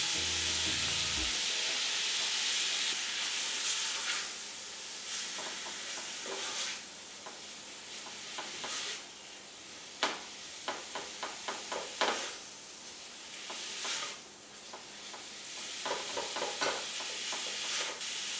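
Ground beef sizzling as it browns in a pot with a little fat, with a utensil scraping and knocking against the pot as the meat is stirred and broken up. There is a run of quick knocks about ten seconds in and another cluster near the end.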